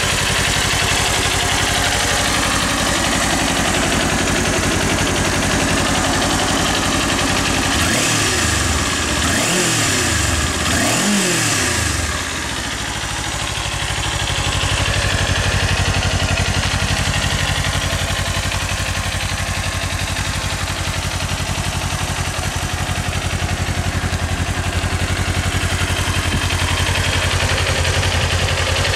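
Kawasaki Ninja 400's parallel-twin engine idling steadily through its stock exhaust. About a third of the way through, it revs up and back down three times in quick succession, then settles back to idle.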